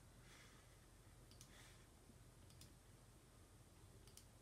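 Near silence with a few faint computer clicks, made while copying and pasting a list through right-click menus.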